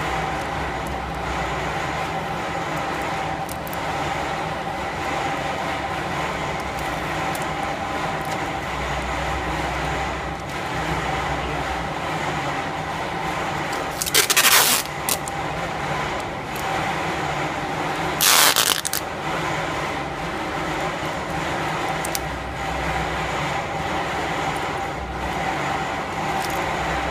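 Steady machinery hum around a vertical packaging machine, with a low throb that comes and goes. Two short, loud bursts of hiss-like noise come about fourteen and eighteen seconds in.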